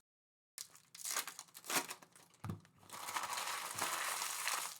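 Trading card pack wrappers being torn open and crinkled by hand: a few quick rips, then a steady stretch of crinkling from about three seconds in.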